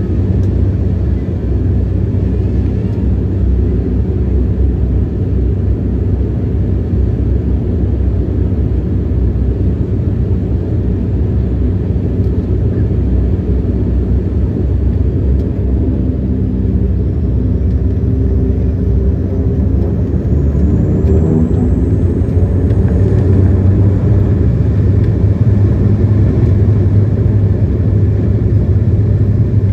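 Airliner engines running under a steady heavy rumble, spooling up for takeoff: a whine rises in pitch over several seconds about halfway through, and the rumble grows louder near the end.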